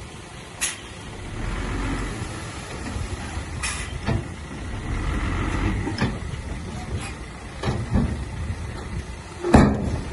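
Heavy earthmoving machinery running with a low engine rumble, broken by several sharp metallic clanks and knocks, the loudest near the end.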